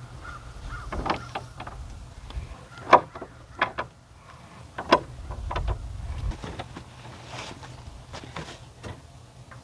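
Irregular knocks and clunks of hand tools working on the wooden door boards, a sharp knock every second or so, over a low steady rumble.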